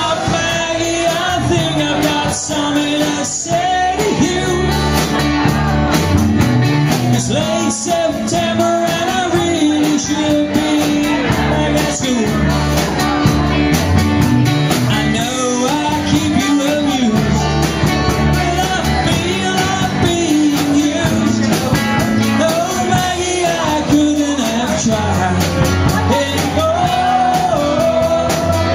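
Live rock band playing: electric bass, acoustic and electric guitars and drums, with a wavering lead melody line over the top.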